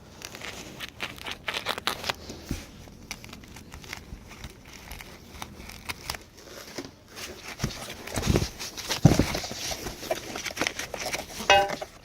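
A cardboard shipping box being cut open and unpacked: irregular scraping, tearing and crinkling of the box and packing material, with a couple of louder thumps from handling the box about two-thirds of the way through and a short squeak near the end.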